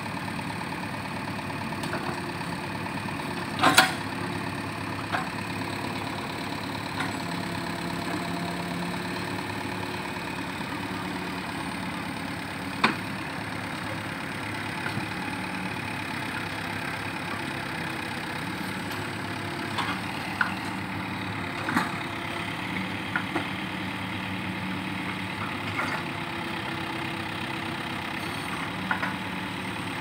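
Case 580G backhoe's diesel engine running at steady revs while pulling a stuck lorry, with a few sharp knocks over it; the loudest knock comes about four seconds in, with others near thirteen and twenty-two seconds.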